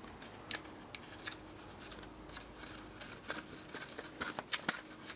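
Fingers handling a car engine-control module's circuit board, making small irregular clicks and light scratches against the board and its chips.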